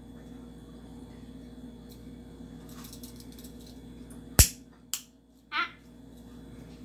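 Hand-held lighter being clicked to light a gas stove: two sharp clicks about half a second apart, the first much the louder, over a steady low hum.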